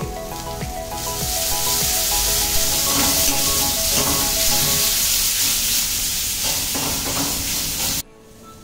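Onion-tomato masala sizzling in a metal karahi over a high flame, with a metal ladle scraping the pan as it is stirred. The sizzle grows louder about a second in and cuts off suddenly near the end; background music plays underneath.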